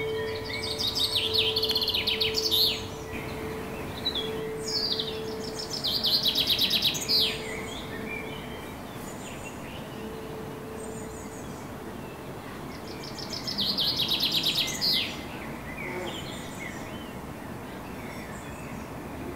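A small songbird singing three fast, trilled song phrases of repeated high notes, each about two to three seconds long and ending in a quick downward flourish. The phrases start about half a second in, about four and a half seconds in and about thirteen and a half seconds in, with softer scattered chirps between them.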